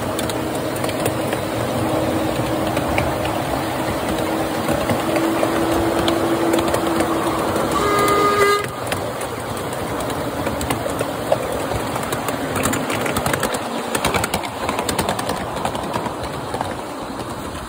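Miniature railway train running along the track: a steady rumble and rattle of the wheels on the rails, with a whine that rises slightly in pitch. About eight seconds in, the locomotive gives one short horn toot.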